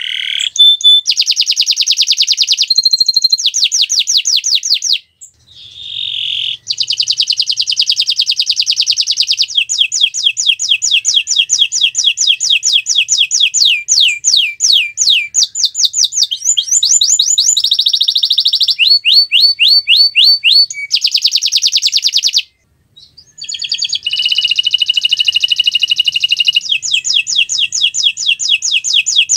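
Domestic canary singing a long song of fast trills: rapid runs of repeated, sharply rising or falling notes that change speed and pitch from phrase to phrase. The song breaks off briefly twice.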